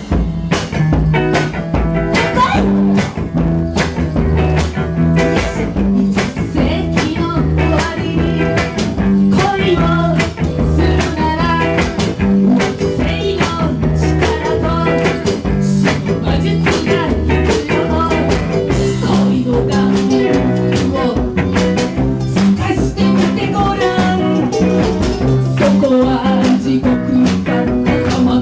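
Live band playing an upbeat song: a walking bass line, strummed guitar and ukulele, and hand percussion and drums, with a woman singing over them.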